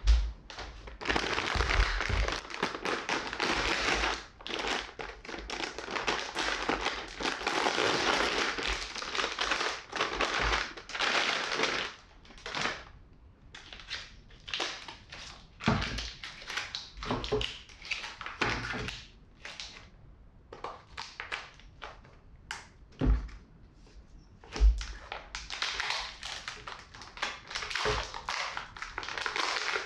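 Plastic bag and packaging crinkling as vacuum-sealed packs of liver are handled, with a few soft thunks as the packs are set down on a wooden cutting board. Near the end, more crinkling as the plastic of a vacuum pack is peeled open.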